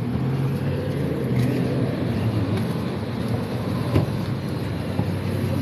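Motor vehicle engine running steadily with a low hum, with a single sharp click about four seconds in.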